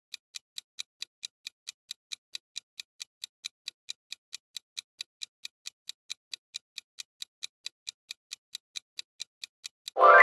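Countdown timer sound effect: a clock ticking steadily, about four to five ticks a second, as the quiz timer runs down. At the very end, as time runs out, a loud ringing chime sounds and slowly fades.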